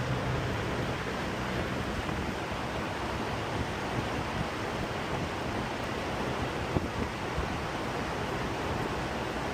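A car on the move: steady road and wind rush with a low engine drone underneath.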